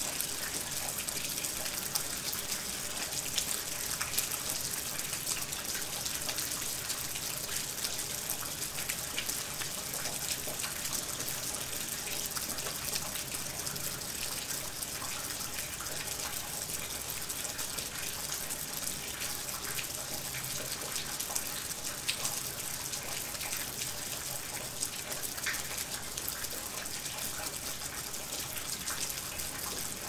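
Steady rain falling, an even hiss with many individual drops ticking close by.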